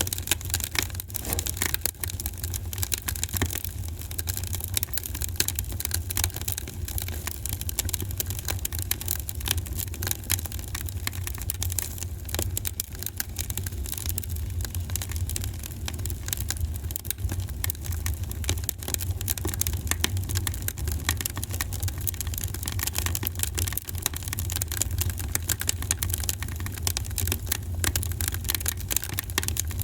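Fireplace fire crackling, with dense, irregular small pops and snaps over a steady low rumble.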